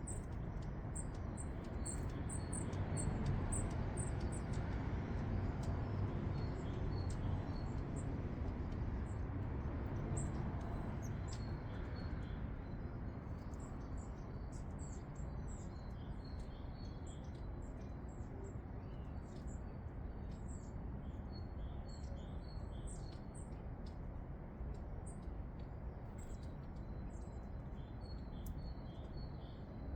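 Small garden songbirds calling with many short, high, thin chirps, over a steady low rumbling background noise that is louder for the first dozen seconds.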